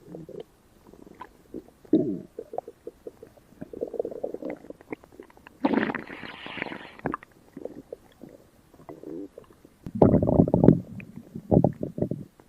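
Stomach rumbling and gurgling: irregular gurgles and crackles, with louder, longer rumbles about six seconds in and again about ten seconds in.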